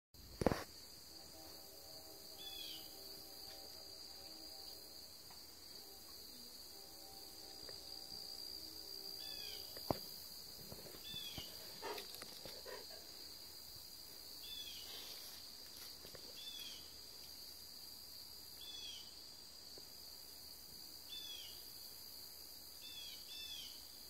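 Crickets chirping in a steady high trill, with an extremely distant locomotive horn sounding a faint chord of several notes in two long blasts during the first ten seconds, split by a short break. A sharp knock comes right at the start and a click about ten seconds in, and a short call repeats every couple of seconds.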